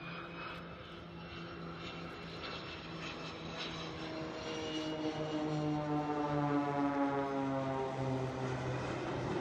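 A low pass by aircraft: the engines of the Boeing 727 jet and the Blades' propeller aerobatic planes, growing louder as they approach. The hum of evenly spaced engine tones drops in pitch from about halfway through as they go past.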